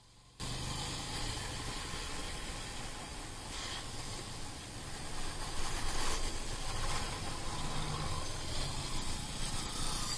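Motorcycle on the move: a steady rush of wind and road noise over the bike's engine running beneath, cutting in abruptly just after the start.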